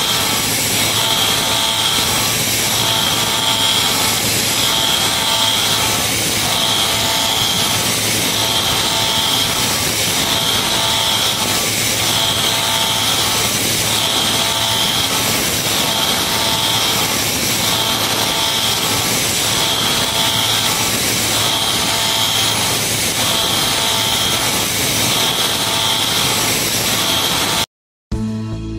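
CNC milling machine cutting heat-treated steel of about HRC55 with a carbide end mill spinning at 4,500 rpm: a dense, loud cutting noise with a high whine that swells about once a second. It cuts off abruptly near the end.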